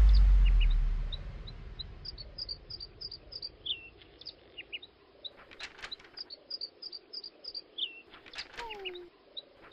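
Small birds chirping: many short, high chirps with a few downward-sliding calls, over a deep low note that fades out in the first second. Brief crackles come about halfway through and again near the end.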